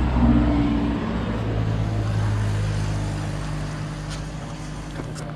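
Motor vehicle engine running steadily, loudest around the first second and then easing off slightly.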